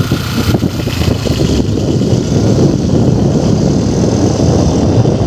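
Loud, gusty wind rumble on the microphone, mixed with the running of a moving vehicle.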